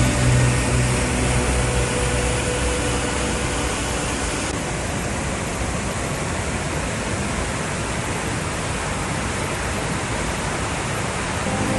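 Steady rushing of water, an even roar with no break, while the last notes of background music fade out over the first few seconds.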